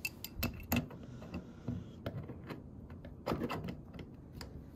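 Adjustable steel wrench clicking and knocking against the metal case nut and stainless dispenser pan as it is seated and turned counterclockwise to loosen the nut. Several separate sharp clicks, with a quick cluster about three and a half seconds in.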